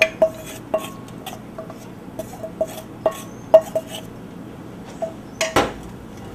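A spoon scraping and tapping inside a stainless steel bowl, a string of ringing metal clinks every few tenths of a second as melted jaggery syrup is scraped out into a pot. About five and a half seconds in there is a louder double knock.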